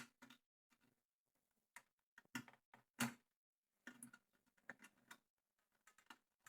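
Sparse small clicks and taps of hands and tools working the cable plugs on an amplifier's circuit board, with near silence between them; the firmest knocks come about two and a half and three seconds in.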